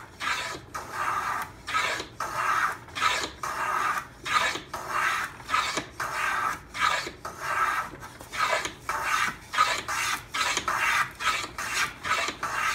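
Lie-Nielsen hand plane with a 55-degree high-angle frog cutting a chamfer along the edge of a wooden molding-plane blank. It takes repeated short strokes, about two a second, each a hiss of the iron slicing thin shavings.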